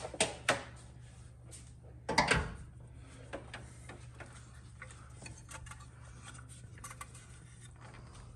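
Clicks and knocks of engine parts and hand tools being handled, with a louder clatter about two seconds in and scattered light ticks after, over a steady low hum.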